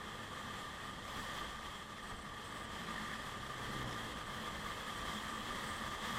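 Steady wind rush and running drone while riding a Yamaha Aerox 155 scooter at speed, picked up by a mounted action camera.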